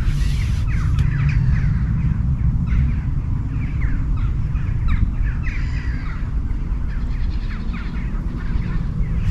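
Wind buffeting the microphone in a steady low rumble, with birds calling over it in many short, falling chirps.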